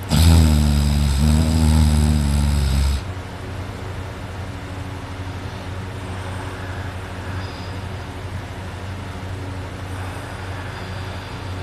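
A person snoring loudly in sleep while lying on their back: one long, low-pitched snore lasting about three seconds at the start, followed by a much quieter stretch.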